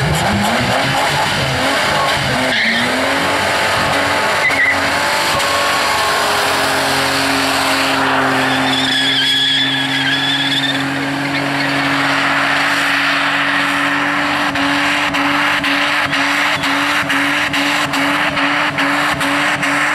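Holden VN Commodore doing a burnout: the engine revs up and is held at high revs while the rear tyres spin and squeal on the pad. In the second half the engine note pulses about twice a second.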